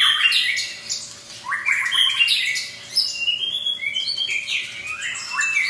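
White-rumped shama (murai batu) singing a long, varied song of quick rising sweeps, chirps and short clear whistles, broken by two brief lulls.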